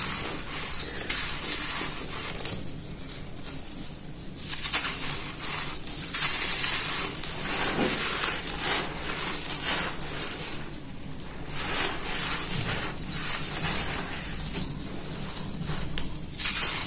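Hands crushing and crumbling dry red dirt chunks: a gritty crunching with many small crackles as grit and dust trickle down, easing off for a couple of seconds about three seconds in.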